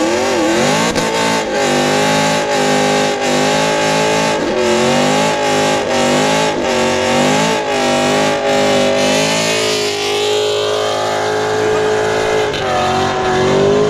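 Ford Shelby GT500 Mustang's supercharged V8 held at high revs through a smoky burnout on wet pavement, the rear tyres spinning. The engine pitch keeps dipping and climbing again, then holds a steadier tone near the end.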